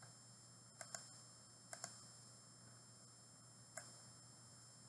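Near silence with a few faint computer mouse clicks: a quick double click about a second in, another about two seconds in, and a single click near the end.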